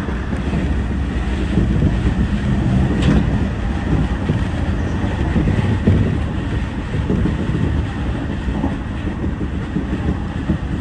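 Meitetsu commuter train running along the track, heard from inside the front of the car: a steady rumble of wheels on rail, with a single click of the wheels over the track about three seconds in.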